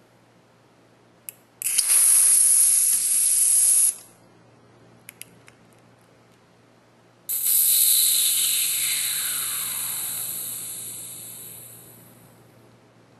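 Compressed air hissing out of a Fox TALAS fork's IFP chamber through a DIY needle-and-set-screw charging tool as the chamber is deflated. A click, then a short burst of about two seconds; a few small clicks, then a longer hiss that fades out over about five seconds with a tone falling in pitch as the pressure drops.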